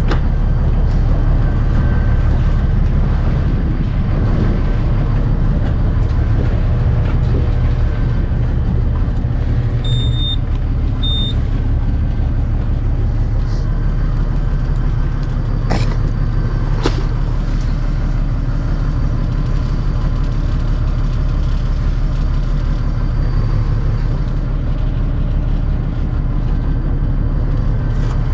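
A small fishing boat's engine and deck machinery run with a steady low drone. Two short high beeps come about ten seconds in, and two sharp knocks come around the middle.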